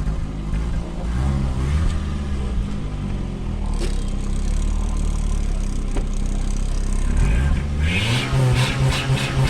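Fiat Palio 1.0's small four-cylinder engine running, its exhaust blowing through a plastic sink-trap reducer jammed in the tailpipe as a homemade fake turbo sound. The engine pitch wavers, then climbs as it revs about three-quarters of the way in, with a rapid fluttering rattle near the end.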